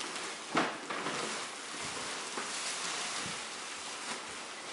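Large black plastic trash bag rustling and crackling as it is rummaged through for presents, with a sharper crinkle about half a second in.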